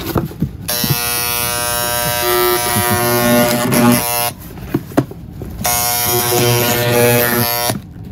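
Small handheld electric cutter buzzing as its blade is worked into a cardboard box, a tool not really made for cardboard. It runs in two stretches of a few seconds each, with a short break and a few clicks near the middle.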